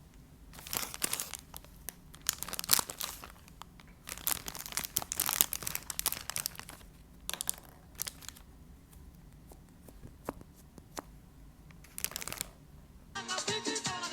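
Plastic candy-kit packets being crinkled and torn open by hand, in irregular bursts of crackling. Music with a steady beat comes in near the end.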